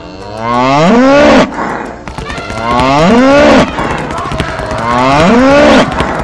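Cow mooing three times, each long call rising and then falling in pitch.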